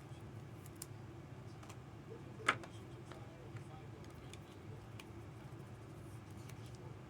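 Trading cards being handled: a few faint clicks and one sharper click about two and a half seconds in, over a low steady hum.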